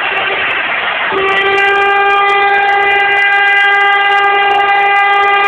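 An air horn starts about a second in and blows one long, steady note, over the noise of a stadium crowd.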